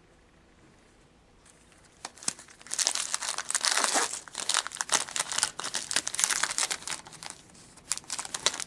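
Wrapper of a trading card pack crinkling and tearing as it is opened and handled. Quiet at first, then a dense run of crackling starts about two seconds in and lasts almost to the end.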